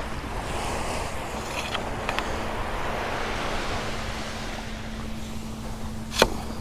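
Small waves washing onto a sandy beach, with wind rumbling on the microphone and a faint steady low hum underneath. A single sharp click near the end.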